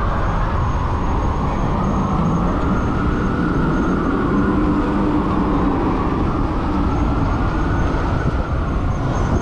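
Steady wind rush on an action-camera microphone from riding an electric bike through city traffic, with slow swells and a faint high whine that comes and goes.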